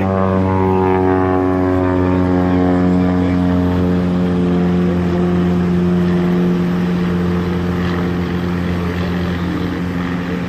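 Propeller engine of an aerobatic biplane running steadily in flight, its pitch dropping slightly over the first couple of seconds and then holding.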